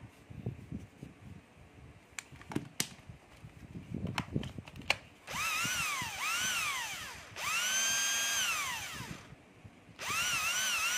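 A few clicks and knocks as a 12-volt battery pack is fitted, then a 12-volt cordless drill's motor run in four trigger pulls: two short bursts, a longer steady run, and a fourth near the end, each rising in pitch as it speeds up. On release the motor winds down gradually rather than stopping short, as the drill has lost its brake.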